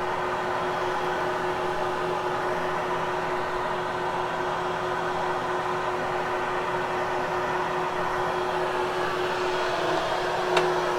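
Vacuum cleaner running steadily while grooming a freshly cleaned carpet, a constant motor whine over a rushing hum. A brief click near the end.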